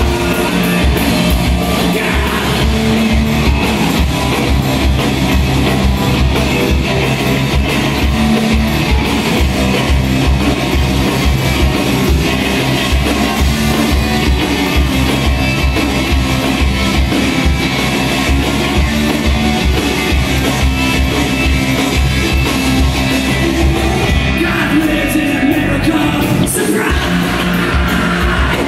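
A rock band playing live: electric guitars over a steady drum beat, with singing.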